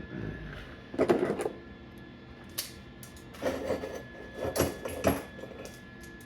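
Metal pieces clanking and knocking as they are handled and set in place, in a few irregular bursts.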